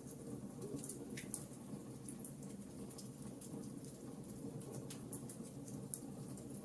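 Campfire crackling: frequent small, irregular snaps and pops over a steady low sound of burning, with sharper pops about a second in and again near six seconds.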